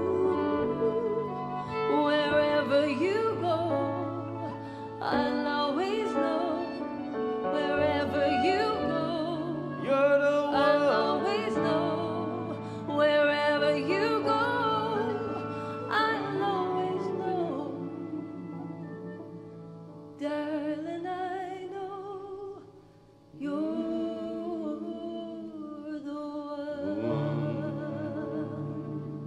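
A woman singing a slow song with vibrato, accompanied by a fiddle, with a short break about three-quarters of the way through.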